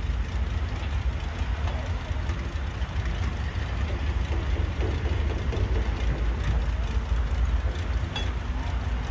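Heavy dump truck engines running in a convoy, heard as a steady low rumble.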